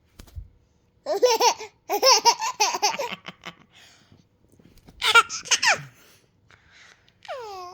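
Baby laughing in high-pitched bursts of quick giggles, about a second in, again from two to three seconds in, and around five seconds in. Near the end comes one long squeal that falls in pitch.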